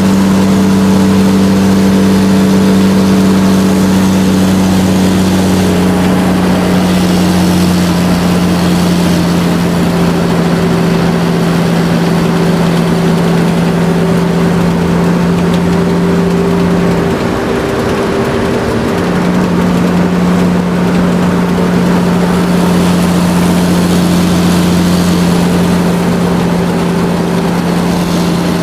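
Large truck engine running steadily while the truck drives, a low, even drone. About two-thirds of the way through the engine note drops away for a couple of seconds, then comes back steady.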